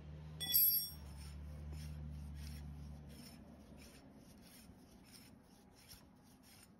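A short metallic clink with a brief ring about half a second in, then the front Demand Drive hub of a Polaris Scrambler 400 being turned by hand, giving an even, repeating rasping rub. The hub turns stiffly because its new bearings went in dry, without fluid on them.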